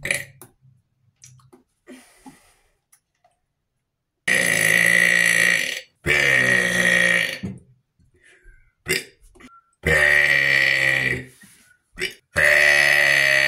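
A person burping: four long, loud, deep burps, two back to back about four seconds in and two more around ten and twelve seconds, with quick breaths and small mouth clicks in the gaps.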